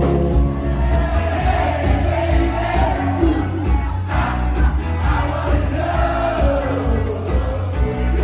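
A live band plays a pop song, with a steady bass line under a singer's voice.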